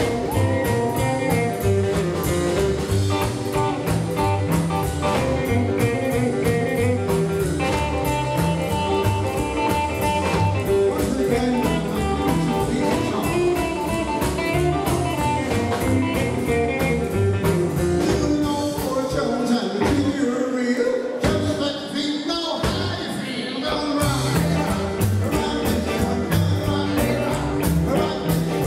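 Live rockabilly band playing: saxophone, electric guitars, upright bass and drums, with singing. About twenty seconds in, the bass and drums drop out for a few seconds before the full band comes back in.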